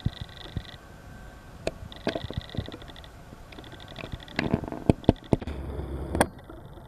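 Insects chirping in repeated short bursts at one steady high pitch, with scattered sharp clicks and a brief low rumble near the end.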